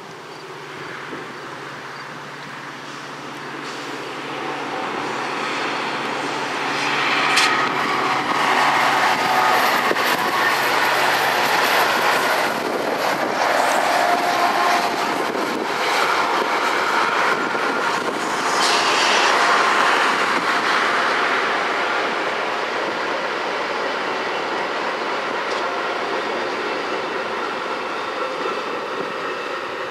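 Metra EMD F40PHM-2 diesel locomotive No. 210 approaching under power and passing, followed by the rumble of bilevel passenger cars rolling over the rails. The sound builds from a low engine drone to its loudest in the middle as the train goes by, then slowly fades as the coaches pass.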